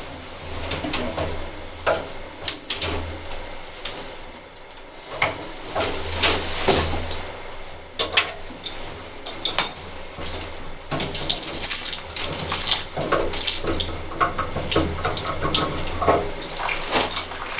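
Metal clinks, scrapes and clicks of a wrench and brass pipe fittings as an old brass ball valve is unscrewed from a well pressure tank's plumbing, with water trickling from the opened pipe.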